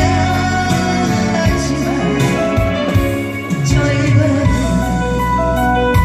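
Loud, upbeat live song accompaniment with a steady beat: bass, sustained keyboard tones and regular cymbal hits.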